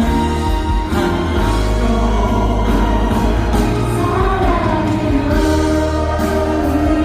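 Live pop ballad played by a band with singing over it, at a steady loud level with a sustained low bass.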